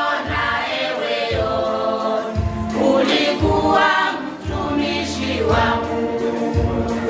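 Gospel choir singing, backed by a steady low drum beat.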